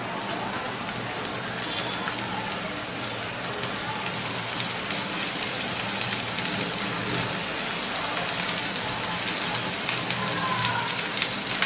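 Thinly sliced bitter gourd frying with chopped onions in hot oil: a steady sizzling hiss with many small crackles.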